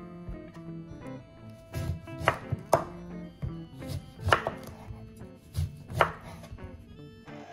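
A chef's knife cutting whole oranges in half on a bamboo cutting board. Each cut through the peel ends in a sharp knock of the blade on the board, several times over.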